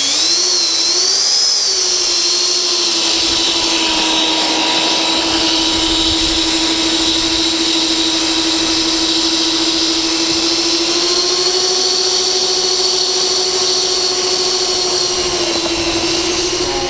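Twin 70 mm 12-blade electric ducted fans of a radio-controlled Boeing 737 MAX-8 model running with a loud, steady whine, pushing the model along grass. The pitch wavers with the throttle at first, then holds, rising a little about eleven seconds in and settling back near the end.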